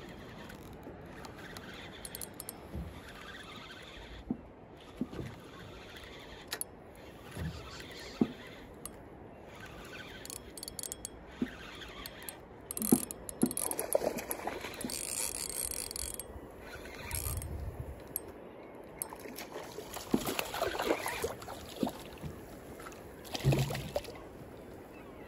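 Spinning reel being wound in while a hooked bass is brought to the boat: the reel's gears make a mechanical whirring with scattered clicks. A few louder noisy bursts come in the second half.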